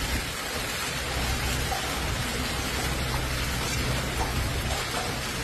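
Hail pelting down steadily onto a road and parked cars, a dense even clatter with a low rumble underneath.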